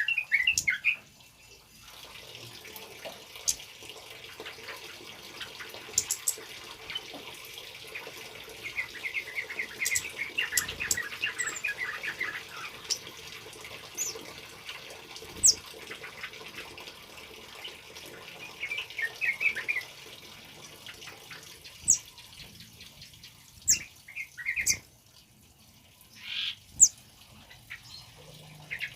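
Male kemade songbird singing in several bursts of rapid chattering notes, with a long burst in the middle and short ones near the start and end, among sharp single high notes. Behind the song runs a steady trickle of water.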